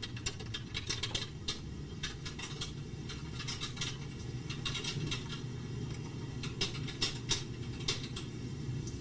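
Typing on an electronic typewriter: rapid, irregular clusters of sharp key clicks with short pauses between words, over a low steady hum.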